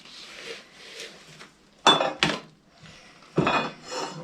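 Hand tools clattering on a workbench as they are handled and set down: two sharp knocks about two seconds in, then more rattling near the end.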